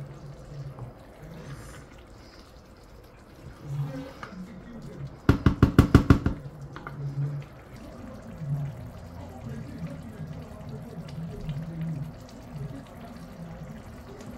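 Pot of thick stew simmering, with low bubbling plops. About five seconds in comes a quick run of about eight sharp knocks lasting about a second, the loudest sound.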